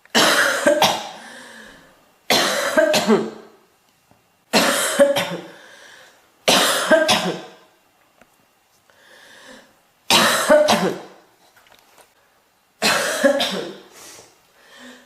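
A girl coughing in six bouts about two seconds apart, each of two or three sharp coughs trailing off. There is a fainter breath between the fourth and fifth bouts.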